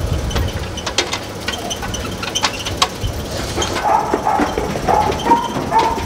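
Metal clanks and knocks from a sheep handling crate and race over a steady mechanical background, with sheep bleating from about four seconds in.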